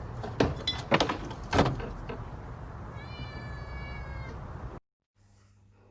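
A few sharp knocks, then a cat's drawn-out high meow lasting just over a second, starting about three seconds in.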